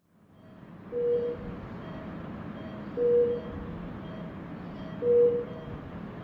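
Electronic beeping: a loud, single-pitched beep about every two seconds, with fainter, quicker, higher beeps between them, over steady room noise that fades in just after the start.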